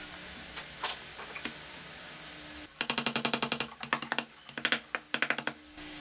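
Rapid run of sharp, dry clicks and taps, about ten a second in uneven groups, as small wooden parts are handled and fitted together. A single click about a second in comes before it.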